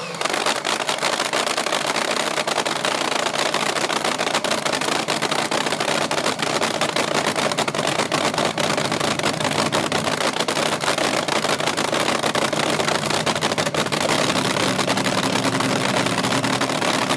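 Supercharged nitromethane-burning AA/FA fuel altered drag racing engine idling on open exhaust headers, a rapid, steady crackling cackle.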